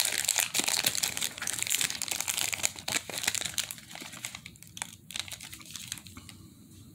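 Cellophane wrapper of a trading-card cello pack crinkling and crackling as it is torn open and peeled off the cards, thinning out and fading over the last couple of seconds.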